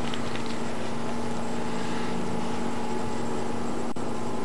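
A steady droning hum at one pitch, unchanging in level, with a faint click near the end.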